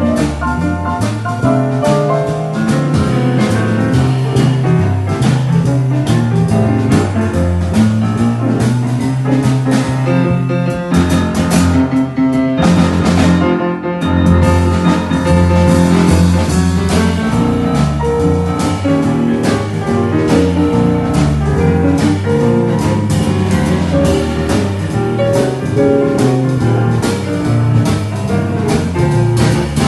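Boogie-woogie played on a Yamaha grand piano: a driving, repeating left-hand bass line under right-hand figures. The left hand drops out briefly about halfway through, then the rhythm picks up again.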